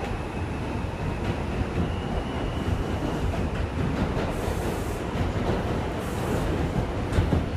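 Interior of an R142 subway car running between stations: a steady rumble of wheels on track with occasional clicks and a faint steady whine. Brief high hisses come in the second half.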